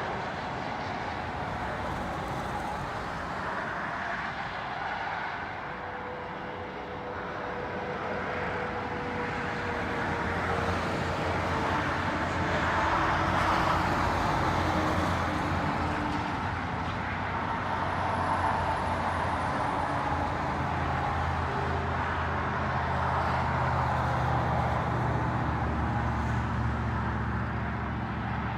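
A motor vehicle engine running steadily over a continuous rushing noise, growing louder about ten seconds in.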